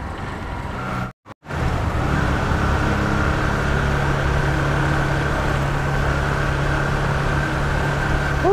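Motorcycle engine running steadily at an even pace while riding through a tunnel. The sound cuts out for a moment about a second in.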